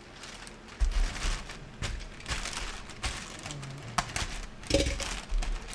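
Items and their plastic packaging being handled: rustling and crinkling with irregular knocks and thumps as things are moved and set down.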